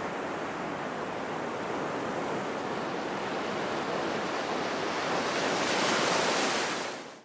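Sea surf breaking and washing up a sandy beach, a steady rush of waves. It swells louder about five to six seconds in, then fades out quickly near the end.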